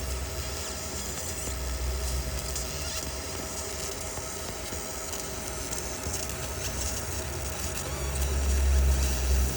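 Laser engraving machine running: a steady hum with a faint high hiss over a low rumble that grows louder about eight seconds in.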